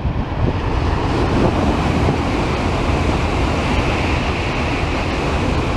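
N700-series Shinkansen train passing at speed: a loud, steady rush of air and rolling wheel noise, with a brighter hiss in the middle.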